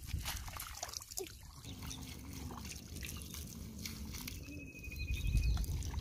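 Water dripping and splashing, with small wet clicks, as a fishing net and the fish in it are handled in shallow water and mud. A low rumble is the loudest thing in the last second.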